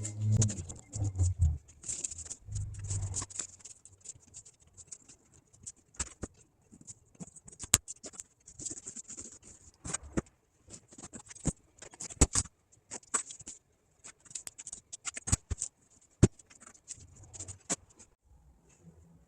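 An old boat-seat upholstery cover being sliced open with a blade: a run of sharp little clicks, snips and scratches as the seam is cut, with the material rustling. There are a few low bumps in the first three seconds or so.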